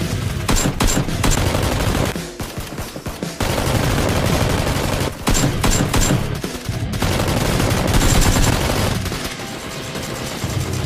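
Rapid automatic gunfire sound effects, bursts of machine-gun-style fire dubbed over Nerf blaster play, with a short pause about two seconds in.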